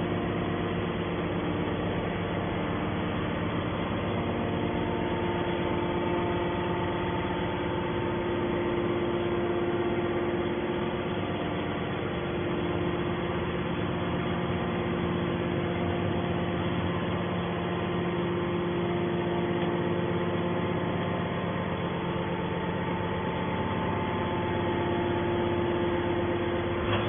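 Hydraulic scrap metal baler's power unit running with a steady drone, holding an even pitch throughout.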